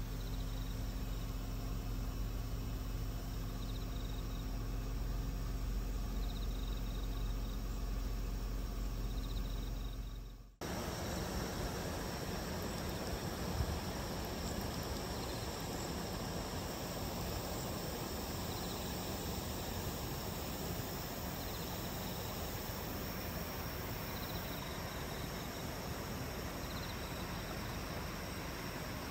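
Insects chirping faintly at night, short repeated chirps every couple of seconds over a steady hiss. For the first ten seconds a steady low hum runs underneath, then cuts off abruptly.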